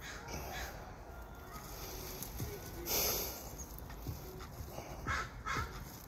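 A crow cawing twice near the end, with a short loud burst of rustling noise about halfway through.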